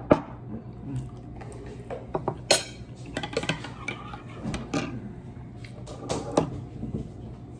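Scattered clinks and scrapes of a metal fork against a ceramic plate while eating rice, with a ceramic mug set down on the table right at the start.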